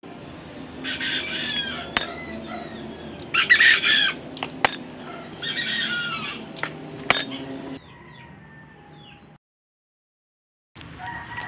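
A rooster crowing three times, with three sharp snaps of a homemade rubber-powered speargun firing its three shafts one after another, about two and a half seconds apart. The sound drops out briefly near the end.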